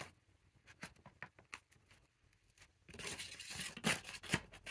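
Packaging being handled and peeled by hand: scattered light clicks and ticks, then about a second and a half of crackly tearing and crinkling from about three seconds in.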